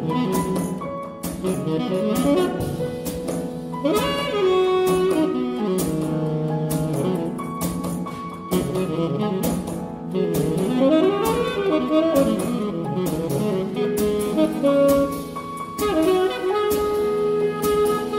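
Jazz trio of saxophone, piano and drums improvising, with the saxophone in front. Quick runs of notes rise and fall over frequent drum and cymbal hits.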